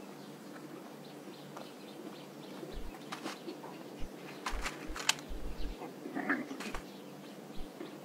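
Quiet outdoor background: a low steady hum with scattered small clicks and rustles, mostly in the middle, and faint bird calls.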